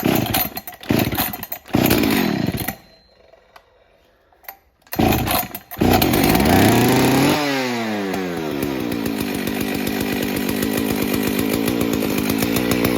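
Husqvarna 61 Rancher two-stroke chainsaw cold-started after sitting for about two months: several quick pulls on the starter cord, a short pause, then more pulling until the engine catches about six seconds in. It runs fast briefly, then drops and settles into a steady idle.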